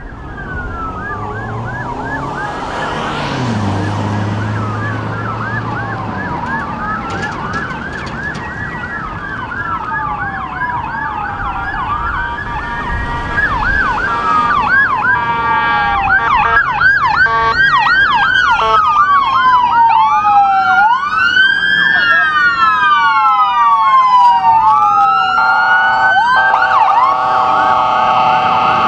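Several electronic emergency-vehicle sirens on police vehicles and an ambulance responding code 3, sounding over each other. Slow rising and falling wails mix with fast yelps and grow louder as the vehicles approach. Near the end a steady, chord-like blare joins the sweeping tones.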